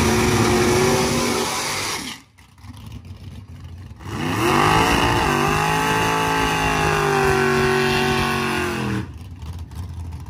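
Car engine held at high revs, then cut off about two seconds in; after a short lull a second run of revs rises, holds steady and stops abruptly near the end.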